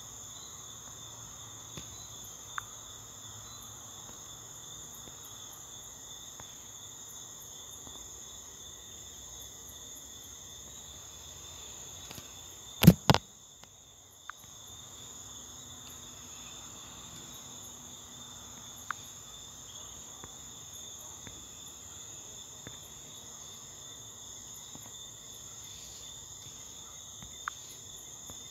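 A steady high-pitched drone made of two tones, with a few faint ticks and two loud clicks about thirteen seconds in.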